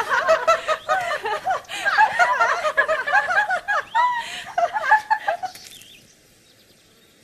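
Several young women laughing and giggling together, dying away about five and a half seconds in.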